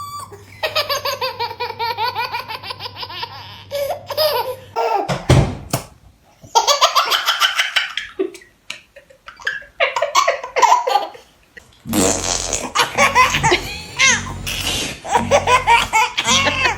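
A baby belly-laughing hard: several long bursts of rapid, pulsing laughter with short pauses between them.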